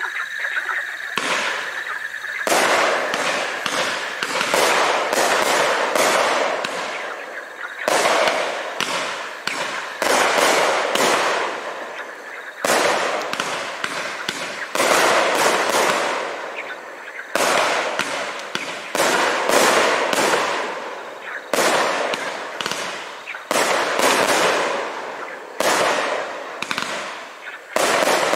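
Winda P5564 Pizza Sampler consumer (1.4G) firework cake firing shot after shot, a burst about every two seconds, each fading out over a second or so.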